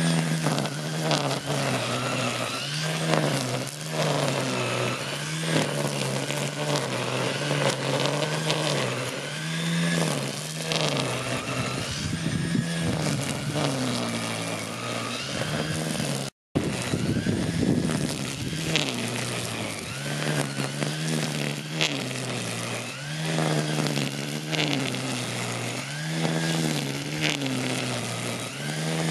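A 1200 W electric string trimmer running at full speed as its spinning nylon line cuts grass. The motor's hum dips and recovers every second or so as each sweep loads it. The sound breaks off for a moment just past the middle.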